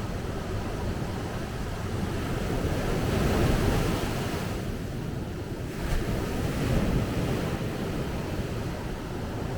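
Sea waves breaking and washing on a beach, swelling louder about three seconds in and again around six seconds, with low wind buffeting on the microphone.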